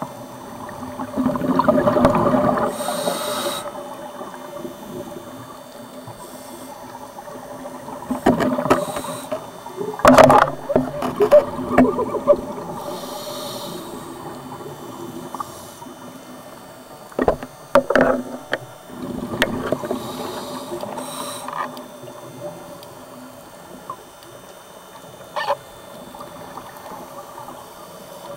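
Scuba regulator breathing heard underwater: three loud, rumbling swells of exhaled bubbles, with shorter hissing inhalations between them.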